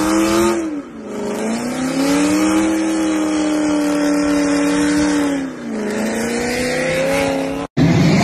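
A Dodge Challenger's engine held at high revs during a smoky burnout, with tyre noise from the spinning rear wheels; the revs dip twice and climb back. It cuts off abruptly near the end into a different, louder sound.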